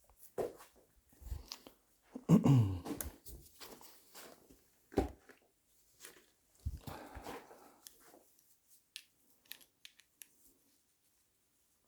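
Hand tools and parts being handled and moved about: irregular knocks, clatter and rustling, loudest about two seconds in, thinning to a few small clicks near the end.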